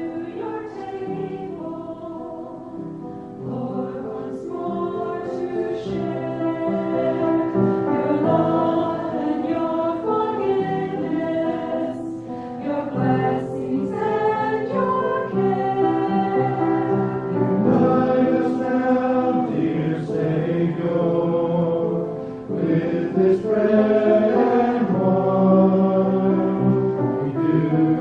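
A church choir singing an anthem with keyboard accompaniment.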